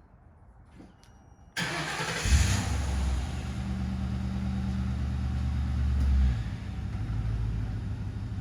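Ford Crown Victoria's 4.6-litre V8 cranked and started: the starter turns it over briefly, the engine catches about two seconds in, and it runs at a steady raised cold-start idle. It then drops to a lower, settled idle near the end.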